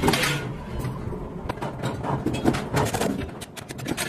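Metal workshop clatter: steel plates clanking and scraping as they are handled at a forging press, with a quick run of sharp metallic knocks near the end.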